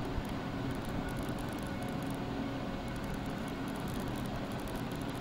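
Steady background noise with a low hum, the room tone of an open microphone between spoken instructions.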